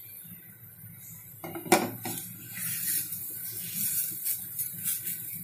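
Wooden spatula knocking and scraping against a nonstick frying pan as a thin gram-flour crepe is lifted and folded. It starts with a sharp knock about a second and a half in, followed by scattered light clicks and scraping.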